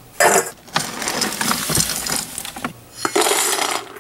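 Dry dog kibble rattling and clattering against a stainless steel bowl as it is handled, in a few noisy spells.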